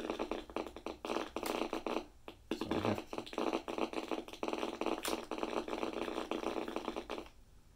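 FM static from a 1981 General Electric 4885 clock radio's speaker, a buzzing hiss with crackle, tuned to no station. It drops out briefly about two seconds in and stops near the end. It plays on because the radio's frozen keypad will not take the off button.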